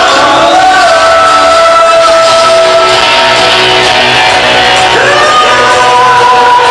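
Loud live rock song: a man sings long held notes, sliding up to a new note about five seconds in, over electric guitar and a band through a club sound system.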